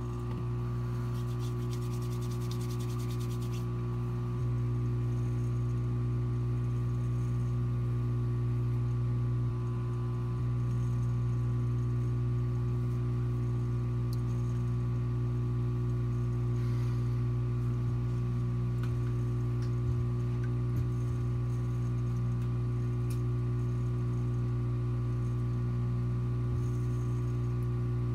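Aquarium sump pump humming steadily: a low mains-driven hum with several overtones that holds the same pitch throughout, stepping up slightly in level about four and a half seconds in, with a few faint clicks.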